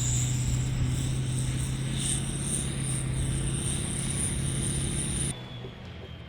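Ford Super Duty pickup engine running steadily at idle, with a high, steady insect buzz over it; both cut off abruptly about five seconds in, leaving a quieter faint hiss.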